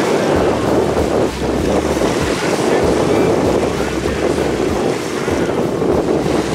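Strong wind buffeting the camera microphone over choppy sea water, a loud steady rushing noise that cuts off abruptly at the end.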